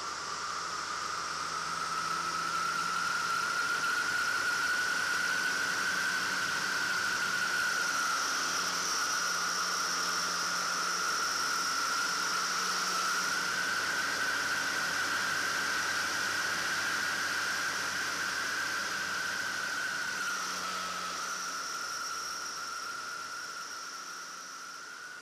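Marquart MA-5 Charger biplane in flight, heard from the open cockpit. A high whining tone wavers slightly in pitch over a steady hiss of rushing air, with the engine faint underneath. It gets louder about two seconds in and fades near the end.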